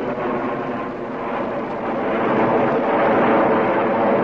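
Jet airliner flying overhead, its engines making a steady, even rush of noise with a faint whine that grows louder about two seconds in.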